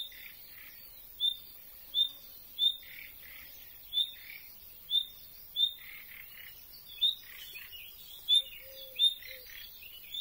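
Common nightingale giving a repeated chirping call rather than its usual song: a sharp high note falling away lower, about once a second, coming faster and more jumbled near the end.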